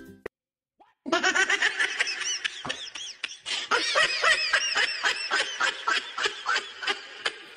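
Rapid, high-pitched laughter starting about a second in, a steady run of short bursts at several a second.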